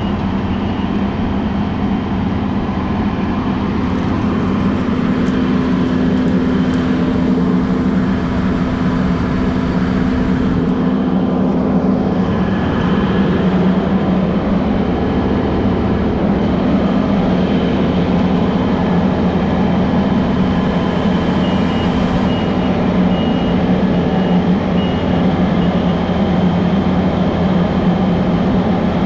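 Diesel engine of a heavy farm machine running steadily, with short stretches of intermittent reversing beeps near the start and about three-quarters of the way through.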